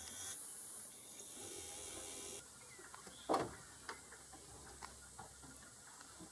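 Faint handling noises: a few light clicks and one louder knock over a steady background hiss, which drops off about two and a half seconds in.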